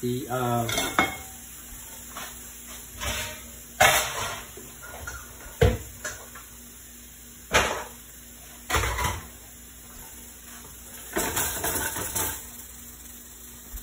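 Kitchen clatter of cookware and utensils: separate metal knocks and clanks every second or two, with a busier run of clattering near the end.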